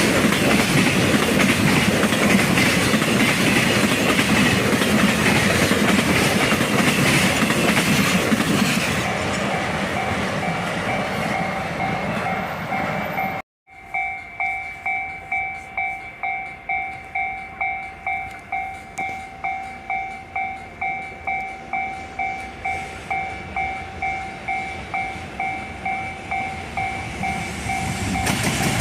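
A freight train rolling past on the rails, its noise fading after about nine seconds as a level-crossing warning bell comes in. After a short break about halfway, the crossing bell rings on steadily in two-tone strokes, about two a second. Train noise rises again right at the end.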